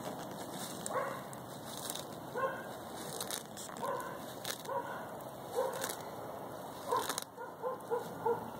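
African spurred (sulcata) tortoise biting and tearing off leafy weeds with crisp crunching snaps. Short, high yelping whimpers come again and again through it, faster near the end.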